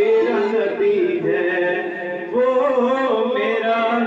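A man sings a naat, an Urdu devotional poem, solo with no instruments, drawing out long ornamented notes that waver and glide in pitch.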